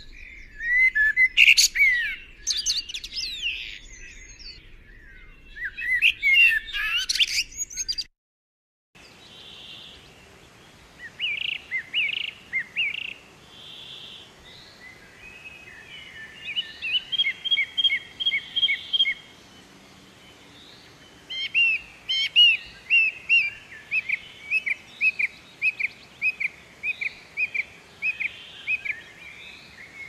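Songbirds singing: a busy mix of chirps and quick trills, a one-second break about eight seconds in, then another bird recording with series of short repeated notes, about two a second near the end.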